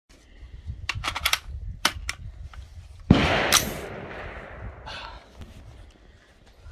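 A few sharp metallic clicks from an AR-15-type rifle being handled and loaded, then a loud gunshot about three seconds in that fades out over about a second.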